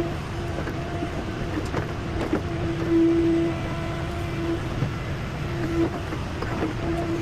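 Heavy digging machine running steadily, with a steady hum that comes and goes several times over the rumble, and scattered clanks and knocks.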